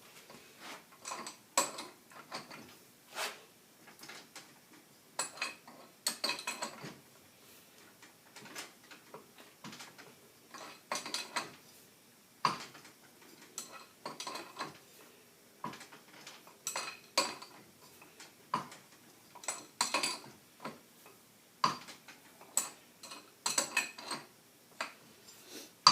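Steel tools clicking and clanking irregularly as a pulley remover is worked against a breaker bar to press a rusted pulley off a power steering pump.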